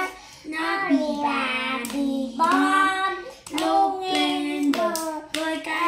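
Children singing a song in held, gliding notes while clapping their hands, the claps sharp and spaced through it.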